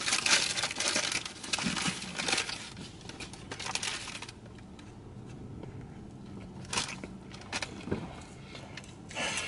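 Paper burger wrapper crinkling and rustling as it is unwrapped by hand, busy for about the first four seconds, then only a few scattered rustles.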